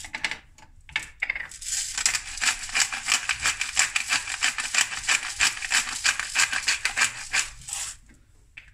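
Pepper mill grinding black pepper: a rapid, even crunching rattle that starts about a second and a half in and goes on for about six seconds, stopping near the end.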